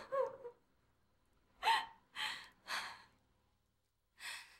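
A woman crying in short gasping sobs: two catches of breath at the start, three more from a little under two seconds in, and two near the end, some with a brief falling voiced whimper.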